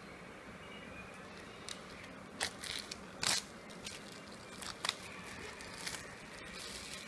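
Clear plastic shrink-wrap being torn and peeled off a cardboard phone box, a run of sharp, irregular crinkles and crackles starting a little under two seconds in, loudest around two and a half and three seconds in.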